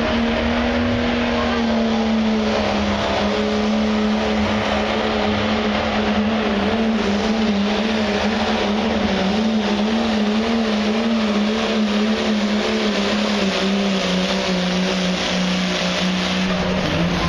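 Diesel pickup truck's engine held at full throttle under heavy load as it drags a weight-transfer sled in a truck pull. The engine note is loud and steady, sags slightly in pitch partway through and drops away near the end.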